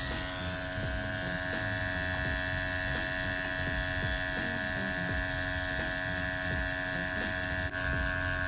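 Permanent-makeup tattoo pen running with a steady, even electric hum as it tattoos pigment into the lips.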